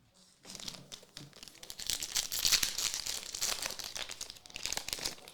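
Trading card pack wrapper being torn open and crinkled, a dense crackling that starts about half a second in and fades near the end.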